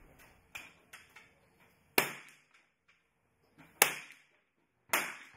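Single shots from .22 rimfire free pistols: three sharp cracks, each with a short echoing tail, about two, four and five seconds in. A few fainter cracks come in the first second or so.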